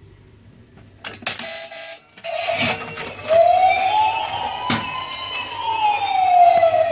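Electronic wailing siren of a Huile bump-and-go toy fire truck, a slow rise and fall in pitch that starts about two seconds in, after a few sharp clicks.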